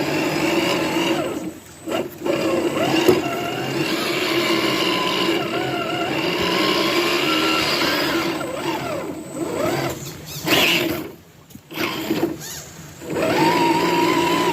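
Redcat Gen8 RC crawler's electric motor and gear train whining, the pitch rising and falling with the throttle. It cuts out briefly about a second and a half in, and again for a few seconds around ten to thirteen seconds.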